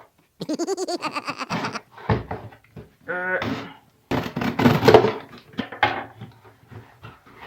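Cardboard box being opened by hand after a knife cut: squeaky pulls of packing tape, then a louder rasping scrape of cardboard flaps about four seconds in, followed by a few light knocks.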